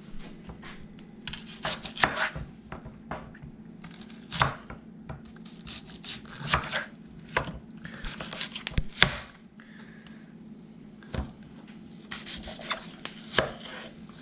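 Kitchen knife slicing a whole raw onion into rings on a wooden cutting board: an irregular series of sharp cuts and knocks of the blade on the board, the loudest about two, four and a half, nine and eleven seconds in.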